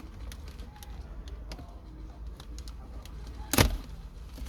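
Small plastic clicks and taps from working a wiring connector's locking tab on the back of a car's climate control panel, with one louder sharp knock about three and a half seconds in.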